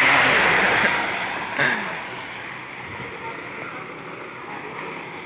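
A road vehicle passing close by on the highway: its tyre and engine noise swells to a peak in the first second and fades over the next, with a short louder sound about a second and a half in, leaving a lower steady background of road and wind noise.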